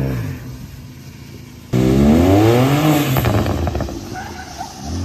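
BMW 335i's turbocharged straight-six revving hard under a drift. It comes in suddenly about two seconds in, its pitch climbing for about a second and then falling back.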